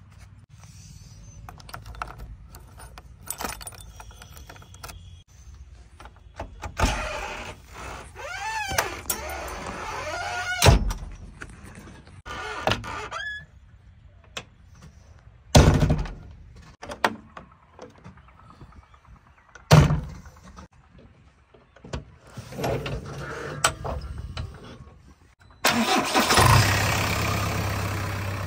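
Loud clunks and knocks from the cab door of a JCB 3DX backhoe loader being opened and shut. About 26 seconds in, its diesel engine cranks, catches and settles into a steady idle.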